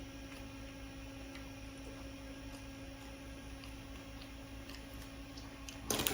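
Steady electrical hum with faint scattered ticks. Just before the end, a sudden louder burst of clattering handling noise.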